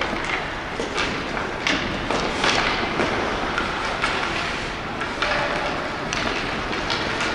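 Ice hockey play on the rink: a steady scrape and hiss of skates on the ice, broken by several sharp clacks of sticks and puck, with a few shouts from players.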